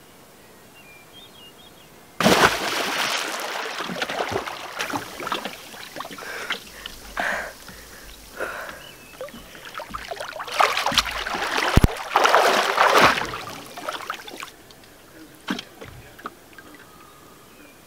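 Lake water splashing and sloshing as a person swims, starting suddenly about two seconds in, loudest a little past halfway, then dying away.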